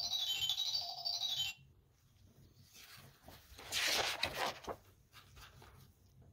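Electronic tune from a children's sound book's button speaker: a quick run of high, stepped beeping notes that stops about a second and a half in. A brief, faint noisy sound follows near the middle.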